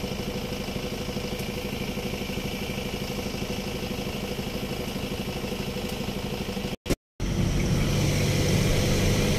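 Loaded truck's diesel engine running steadily under load on an uphill climb, with a fast even throb. It cuts out briefly about seven seconds in and comes back louder.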